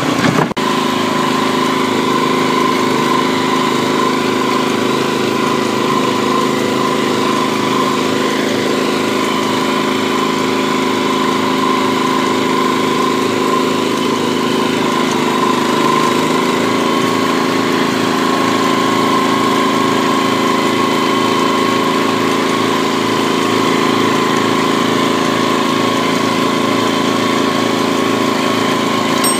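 Kubota TF 65 walking tractor's single-cylinder diesel engine running steadily at an even speed, with no revving.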